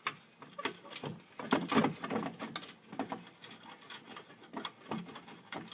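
Screwdriver working a screw out of a cast aluminum streetlight housing, with irregular small clicks, scrapes and knocks of the tool and the metal being handled, busiest about one and a half to two seconds in.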